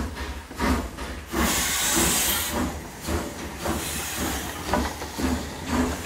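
Steam locomotive running: a burst of steam hiss about a second and a half in, then exhaust chuffs at about two a second.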